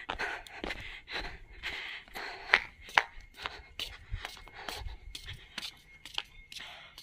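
Footsteps on dry earth and a concrete walkway, about two to three steps a second, with heavy breathing close to the microphone after exertion. Two sharper knocks stand out about two and a half and three seconds in.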